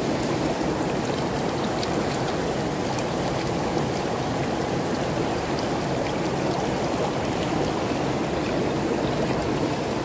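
Small rocky mountain stream flowing: a steady rush of shallow water running over and around stones.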